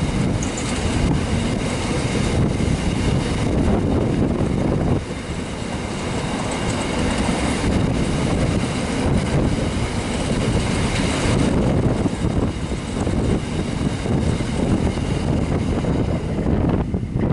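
Empty grain hopper wagons of a freight train rolling past, their wheels clicking over the rail joints. The sound drops away near the end as the last wagon goes by.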